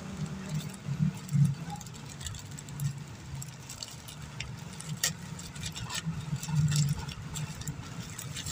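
A plastic mailer parcel being handled and torn open by hand: scattered small clicks and rustles over a steady low hum.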